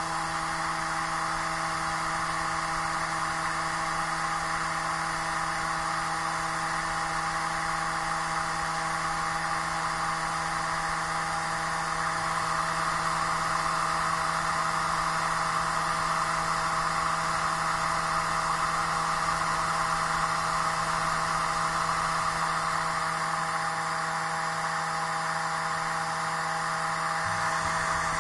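CD burner drive spinning a disc at speed while writing a CD-ROM: a steady whirring hum of several fixed tones with a hiss above it.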